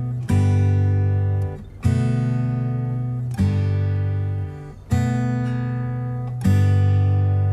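Background music: an acoustic guitar strumming a new chord about every second and a half, each left to ring and fade.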